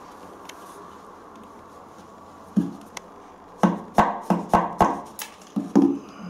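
A run of sharp knocks and taps, about nine of them, starting about two and a half seconds in and coming two or three a second: hand work with a tool at the screw fixings of a toilet pan being secured to the floor.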